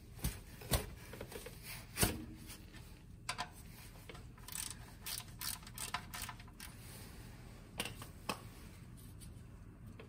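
Scattered faint metal clicks and taps of a wrench loosening a car's oil drain plug on the engine sump, the louder ones in the first couple of seconds and more in small clusters afterwards.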